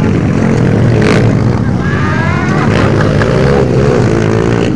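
Several motocross dirt bike engines revving as the bikes race past, their pitch rising and falling over a continuous loud rumble.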